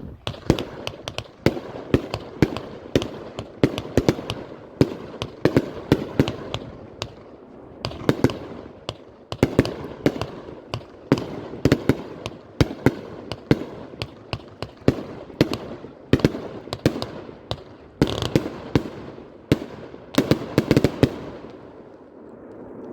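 Raccoon Pro Line RA143008 42-shot firework cake firing: a rapid run of sharp bangs, about two a second, that stops shortly before the end.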